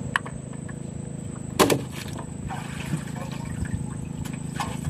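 A motor running steadily with a low hum, with a small click at the start and one sharp knock about one and a half seconds in.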